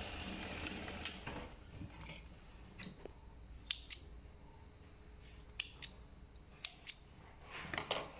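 Sewing machine stitching briefly, stopping within the first second. Then thread snips cut the loose threads: several short, sharp snips, mostly in quick pairs, with fabric rustling between them.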